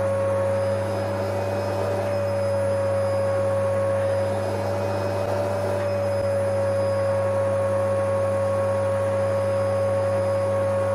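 A steady, loud droning hum with one clear held tone that wavers slightly, over a low steady buzz and noise.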